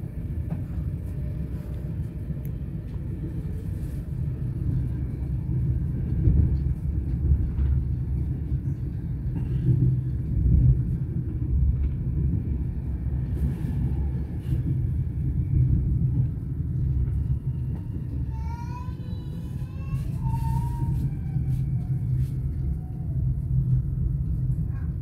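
Inside the passenger compartment of an SBB RABe 511 RegioDosto (Stadler KISS) double-deck electric train in motion: a steady low rumble of wheels on track that swells and eases. About three-quarters of the way through comes a brief wavering higher tone.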